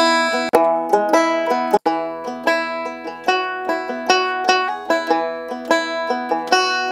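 Pre-recorded melodic banjo loop in E playing back as sample previews: picked banjo phrases that cut off and restart twice in the first two seconds as different files are auditioned, then play on steadily.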